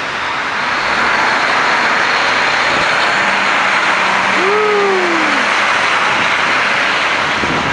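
City street traffic passing in a snowstorm: a loud steady hiss of tyres and engines on slushy road, with a short tone that rises and falls about halfway through.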